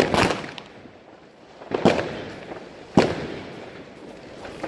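Fireworks going off: a quick double bang at the start, then single sharp bangs about two and three seconds in.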